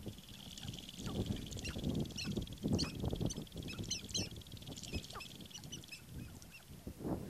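Sharp-tailed grouse calling: a run of short, clucking and cackling calls, thickest in the middle of the stretch, over a steady high buzz.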